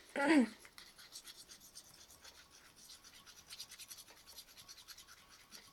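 Spoon stirring and scraping a thick slime mixture in its container, a faint, rapid, repeated scratching, as orange gouache paint is worked in until no lumps remain.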